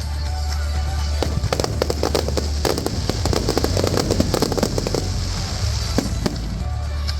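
Fireworks bursting and crackling: scattered sharp bangs, with a dense run of crackles through the middle that thins out near the end, over steady background music.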